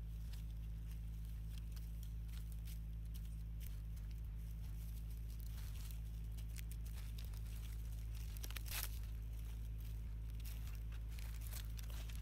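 Dry fallen leaves crackling and rustling as monkeys move over them, in scattered sharp crackles that grow thicker about two-thirds of the way through and again near the end, over a steady low hum.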